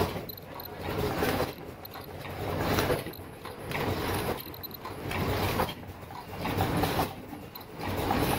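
Disposable flat mask making machine running in its production cycle: a steady mechanical clatter that swells with a rush of noise about every one and a half seconds.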